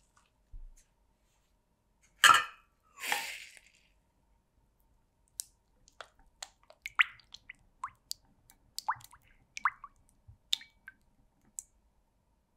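A glass bowl of cubed butter set down into a pan of hot water: a sharp knock and a short rush of noise about two seconds in. Then a silicone spatula stirring and tapping against the glass bowl in quick irregular clicks as the butter melts in the water bath.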